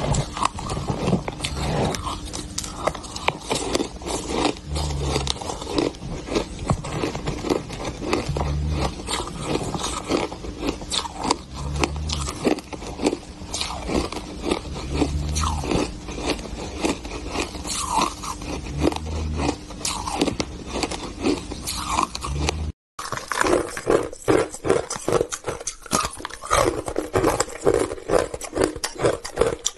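Ice being bitten and crunched between the teeth: a dense, continuous run of sharp cracking crunches, with dull low thuds every few seconds in the first part. It drops out for a moment about three quarters of the way in, then the crunching resumes.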